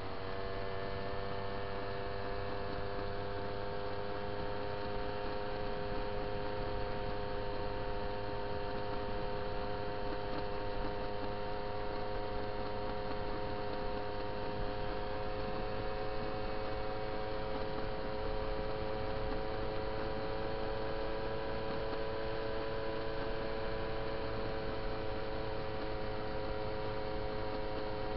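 A moped's small two-stroke engine running at a steady cruising speed: an even, buzzing drone whose pitch creeps up slightly partway through, over a steady hiss of wind and road noise.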